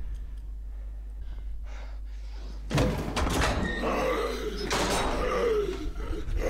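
A low steady hum, then about three seconds in a sudden heavy metal slam as a tank's hatch is thrown open, followed by a steady noisy din.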